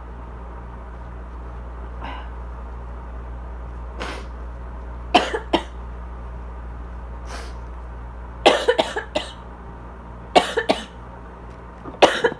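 Asthmatic coughing in short fits: single coughs, then quick runs of two to four, over the steady hum of a loud air conditioner. The uploader thinks the cough is a little drier today.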